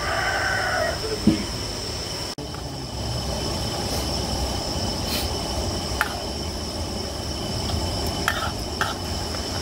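A rooster crows, its call ending about a second in. Then a steady outdoor hum with a constant high drone of insects, and a few light clicks of a metal spatula against a wok.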